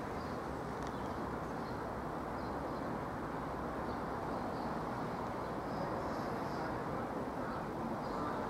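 Steady low rumble of a distant approaching train, with faint bird chirps above it.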